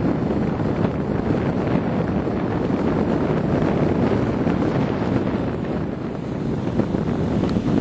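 Wind buffeting the microphone over a Chevy S10 pickup's engine and tyres churning through snow and slush. It is a steady, rough rushing with no distinct revs or knocks.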